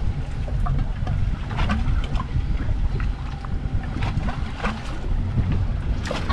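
Wind on the microphone and water slapping against the hull of a drifting fishing boat, with scattered light clicks and taps as a rod, reel and bait rig are handled.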